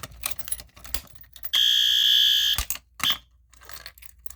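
Clicking and clacking of a fire alarm pull station being handled, then a fire alarm horn sounds one steady, high, piercing tone for about a second and cuts off suddenly, followed by a short blip of the same tone. The horn is a System Sensor P2R horn strobe.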